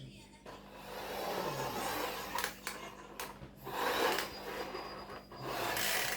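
Irregular rubbing and scraping noises in several stretches, with a few light knocks, from the laptop being handled and moved about on a surface.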